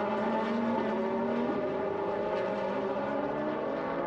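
A pack of racing cars' engines running together as the field goes through the corner, several overlapping engine notes that hold steady and slowly shift in pitch.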